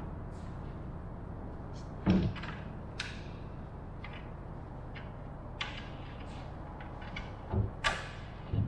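Wooden aircraft parts knocking and clunking as they are handled and fitted on a wooden fuselage frame: a loud knock about two seconds in, a lighter one a second later, and a cluster of knocks near the end, over a steady low background hum.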